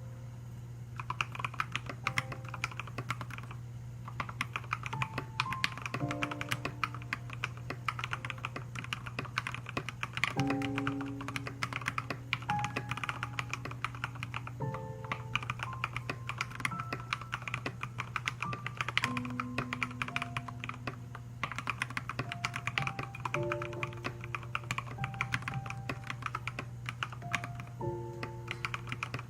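Fast typing on an Akko MOD001 mechanical keyboard with MT3-profile Serika keycaps: rapid runs of key clicks starting about a second in, broken by a few short pauses. Background music with sustained notes plays underneath.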